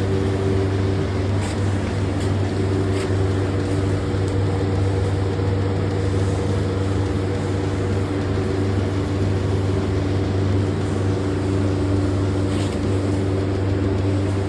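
Steady mechanical hum running at an even level, with a few faint ticks.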